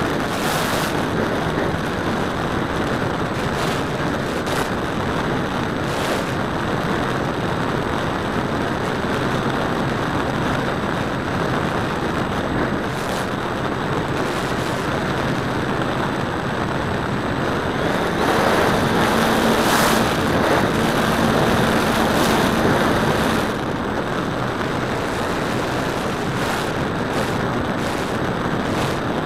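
Model airplane in flight heard from its onboard camera: wind rushing over the microphone with the propeller and motor running steadily, louder for about five seconds past the middle with a steady hum.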